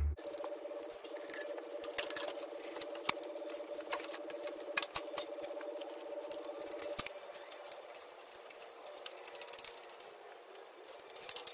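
Scattered sharp clicks and light metallic taps of hands handling exhaust parts and tools under a car, over a steady hum that fades out about seven seconds in.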